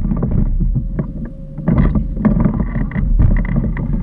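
Small boat running on the water: a steady faint hum under heavy low rumble, with irregular knocks and clatter throughout.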